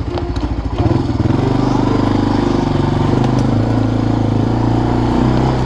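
ATV (four-wheeler) engine running steadily under way, louder from about a second in.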